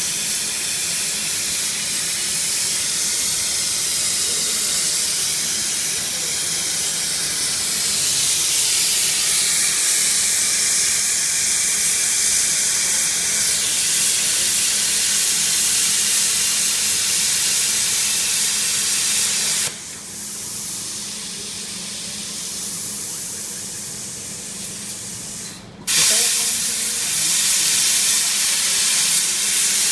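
CNC plasma torch cutting steel plate: the plasma arc makes a loud, steady hiss over a low hum. About twenty seconds in the hiss drops quieter for about six seconds, then comes back abruptly.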